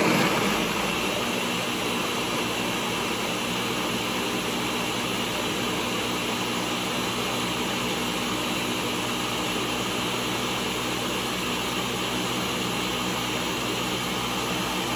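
Ninja countertop blender running steadily on high, its motor pureeing a thick load of baked sweet potato, warm almond milk, almond butter and dates into a smooth mash.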